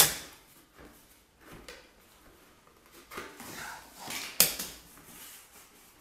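Knocks and clicks from a plastic vacuum hose and plastic bucket being handled, with the vacuum switched off: a sharp knock at the start, a few soft taps and rustles, and another sharp click about four and a half seconds in.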